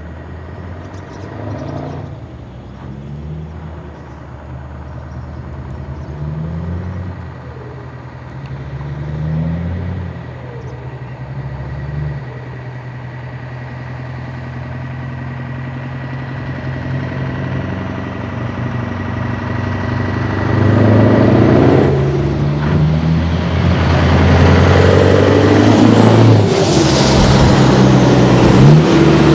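Scania V8 truck engine with open exhaust pipes, blipped up and dropping back every couple of seconds as the truck rolls slowly, then running steadily. In the second half the engine noise grows much louder as a truck passes close, its pitch sweeping down as it goes by.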